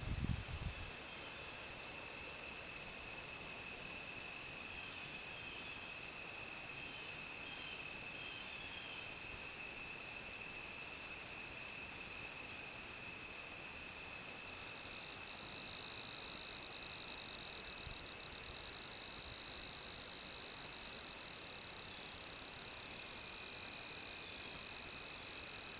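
Insects trilling steadily at several high pitches, one of them a rapid pulsing chirp. A louder buzzing call swells up about sixteen seconds in and again around twenty seconds.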